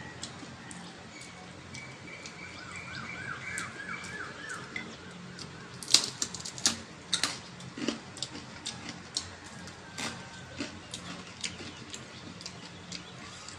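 Crisp fuchka (pani puri) shells cracking and crunching as they are broken and bitten, with sharp crackles loudest about six seconds in. A short run of high chirps sounds faintly about two to three seconds in, over a low steady hum.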